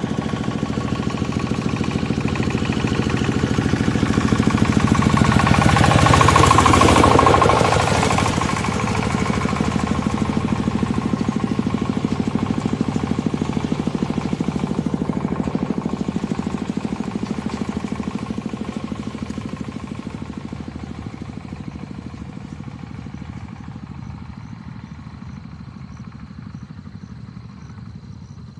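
A motor engine running steadily, loudest about six seconds in and then slowly fading away.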